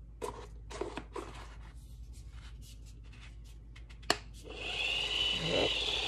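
Light clicks and taps of hands on a plastic toy ball, then a sharp click about four seconds in, after which the small electric motor inside the remote-controlled pet toy ball starts and runs with a steady high whir.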